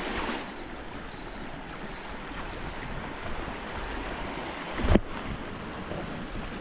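Steady rush of river water with wind buffeting the microphone, and a sudden thump about five seconds in.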